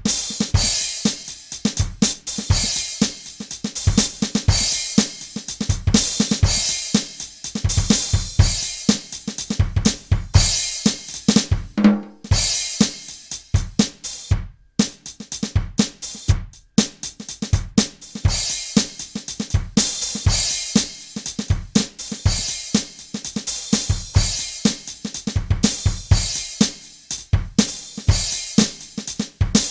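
Electronic drum kit played in a steady groove, recorded direct over a cable, with a short break about twelve seconds in.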